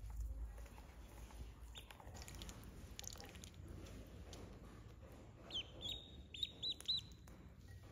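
Duckling peeping: a couple of faint high peeps early, then a quick run of about five short, high, loud peeps in the last couple of seconds.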